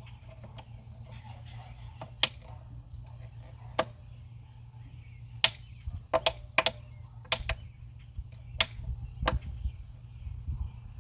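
Irregular sharp clicks and knocks, about a dozen and bunched between the middle and near the end, from tools and metal parts being handled, over a steady low hum.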